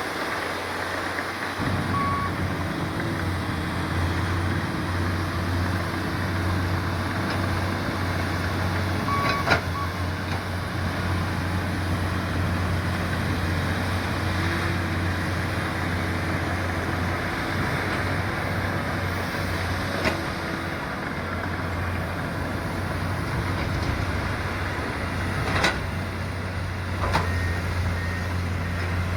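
Komatsu PC200 hydraulic excavator's diesel engine running steadily, picking up load about a second and a half in. A few sharp metallic knocks and short beeps come through over the engine.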